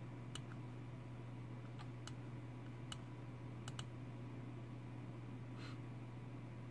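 About seven scattered clicks of a computer mouse, some in quick pairs, over a steady low hum, with a brief soft hiss about five and a half seconds in.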